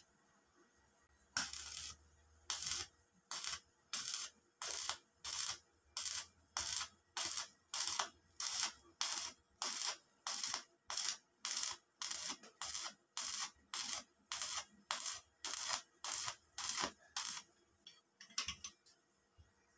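Stick arc welding on a sheet-steel stove frame: the arc crackles and hisses in short, evenly spaced bursts, about one and a half a second, then stops near the end.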